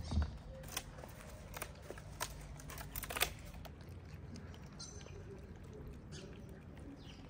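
Light clicks and taps of thin plastic food tubs being handled and set down on the ground, several in the first few seconds. Then quieter, with stray cats eating wet food from the tubs.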